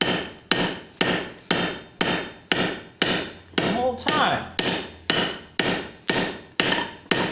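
Hand hammer striking red-hot steel pipe on an anvil, about two blows a second, each ringing briefly. The blows are moderately hard, kept light enough not to collapse the hollow pipe while a taper is forged into it.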